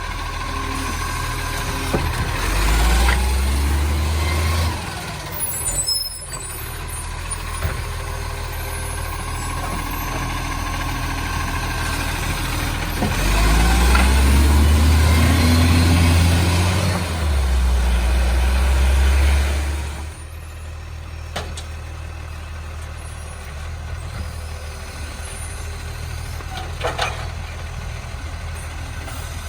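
Diesel engine of a recycling garbage truck revving hard twice, then dropping back to idle, with a roaring exhaust leak and an air-brake hiss. The first rev comes a couple of seconds in; the second, longer one runs through the middle and cuts off sharply about two-thirds of the way through.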